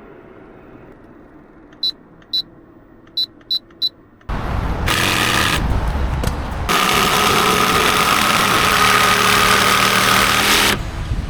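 Five short electronic beeps, then a camper's parking air conditioner starts up about four seconds in. It runs loudly with a rushing noise, and a steady whine joins it a few seconds later.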